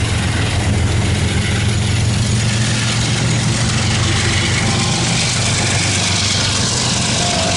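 Diesel locomotive engines of a CSX freight train running steadily with a deep, even drone, over the rumble of the train rolling on the rails.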